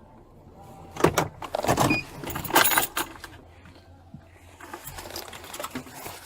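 Metal jangling and clattering in a burst of sharp rattles between about one and three seconds in, with a steady low hum underneath.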